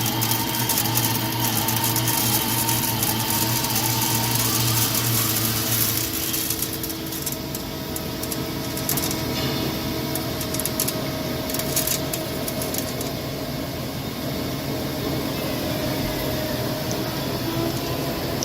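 CNC lathe running while machining, a steady machine hum made of several tones. About six seconds in the low hum drops out and the pitch pattern shifts, and light scattered ticks come through for a few seconds after that.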